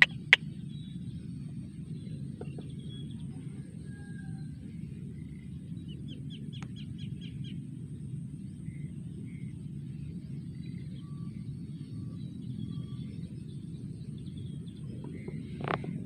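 Rice-field outdoor ambience: a steady low rumble with faint, scattered bird chirps, and a brief run of rapid ticks about halfway through. A single sharp click comes just after the start.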